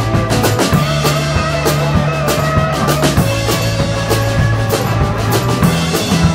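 Live rock band playing: two electric guitars, an electric bass and a drum kit, with regular drum hits over sustained bass notes.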